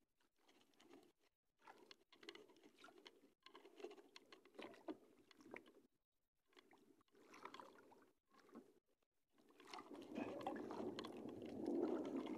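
Faint, scattered crackling handling sounds as fresh bait is pinched onto a handline hook. From about three seconds before the end, water sloshing against the hull of a small wooden outrigger boat grows louder.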